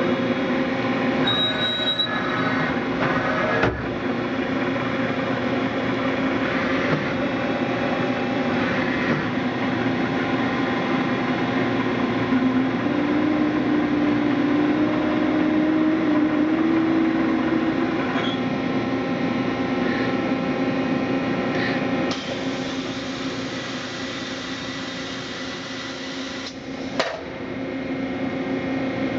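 Mazak H400 horizontal machining center running under power: a steady mechanical hum made of several held tones. Midway a tone climbs a little and holds for several seconds, and near the end there is one sharp knock.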